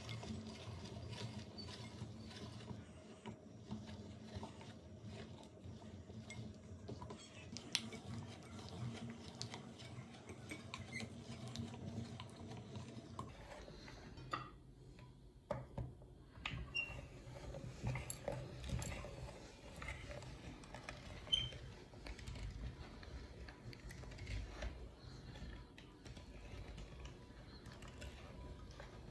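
Hand-cranked metal meat grinder being turned, its auger crushing chocolate and pushing it through the cutting plate: faint, irregular clicking and creaking.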